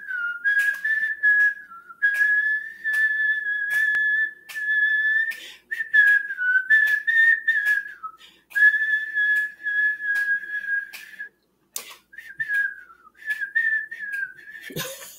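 A woman whistling a tune through pursed lips, in several phrases held mostly around one high note with small dips, separated by short pauses.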